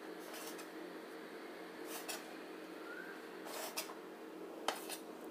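Kitchen knife cutting the crusts off a slice of sandwich bread on a plate: a few short, faint scraping strokes as the blade saws through the crust and touches the plate.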